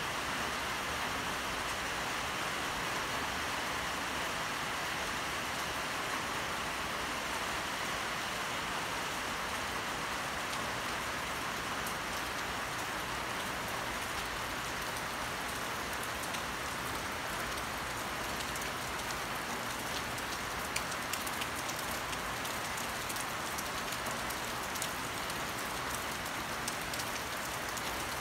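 A steady rain shower falling, an even hiss, with scattered sharper drop taps close by in the second half.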